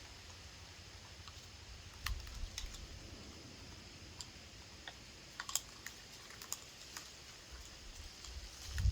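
Scattered small clicks and ticks of an Allen key working an Allen head screw loose inside a less-lethal launcher's grip assembly. The loudest click comes about five and a half seconds in. A low rumble rises at the very end.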